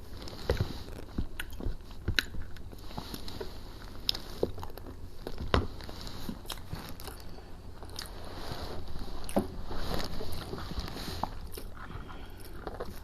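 A person biting into and chewing crunchy fried fish and chicken close to the microphone, with irregular crisp crunches.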